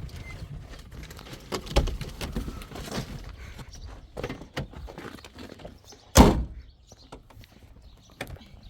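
Several light knocks and bumps, then a door shutting with one heavy thump about six seconds in.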